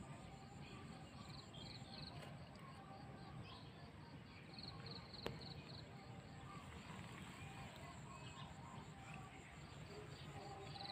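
Faint outdoor ambience of insects chirping in rapid, regular high-pitched pulses, with a few faint bird chirps. One sharp click about five seconds in.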